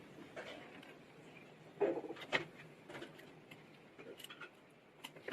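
Light, irregular scratching and clicking of a small tool scraping old display adhesive and debris from around the edge of a smartphone's frame, with a couple of sharper clicks about two seconds in.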